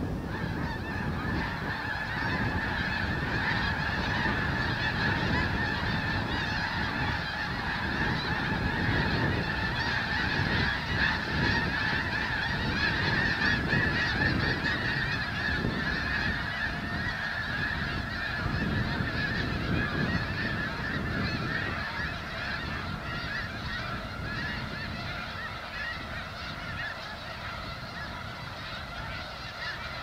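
A huge flock of snow geese calling all at once as it takes flight, a dense continuous clamour of honks that swells over the first dozen seconds and then slowly fades.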